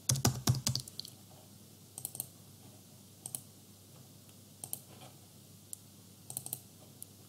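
Computer keyboard keystrokes in a quick run during the first second, then scattered single clicks of keys or a mouse button.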